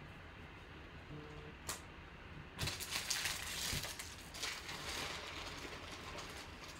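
A single click, then a trading-card pack wrapper crinkling and rustling as it is handled, loudest for about two seconds near the middle before trailing off into lighter rustling.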